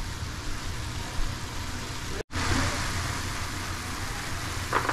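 Diced tomatoes and onions sizzling and simmering in a stainless steel skillet, over a steady low hum. The sound cuts out abruptly for a moment about two seconds in, and the sizzle is brighter afterwards.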